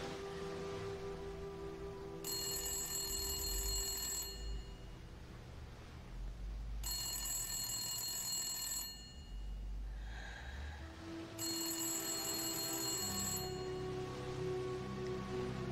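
Desk telephone bell ringing three times, each ring lasting about two seconds with a gap of two to three seconds between them: an incoming call left unanswered. Sustained background music runs underneath.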